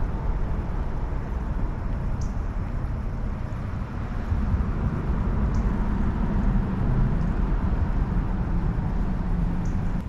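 Wind buffeting the microphone: a steady low rumble with no pauses. A few faint, short, high chirps come through it now and then.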